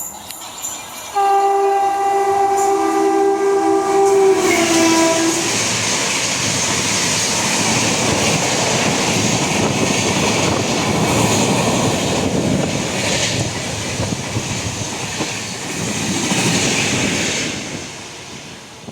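WAP-7 electric locomotive sounding a long multi-note horn, its pitch dropping slightly near its end as it goes by. Then the coaches of an express passenger train pass at speed with a steady rumble and rail clatter for about twelve seconds, fading away near the end.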